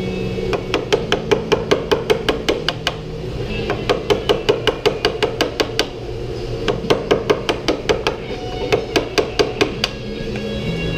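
Small brass-headed hammer tapping a wooden piece in quick, light taps, about six a second, in several runs with short pauses between. Background music plays underneath.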